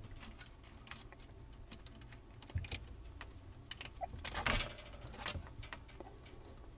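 Light metallic clinks and rattles of a faucet's braided metal supply lines and their fittings being handled and fed through the faucet's mounting nut. There are scattered small clicks throughout and a louder cluster of rattling about four and a half seconds in.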